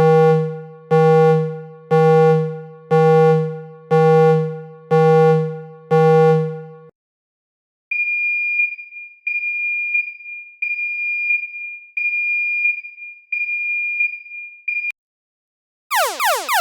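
A sequence of alarm sounds. First, seven low ringing tones about once a second, each starting sharply and fading away. Then six high steady beeps just under a second long, and near the end a fast repeating falling sweep begins.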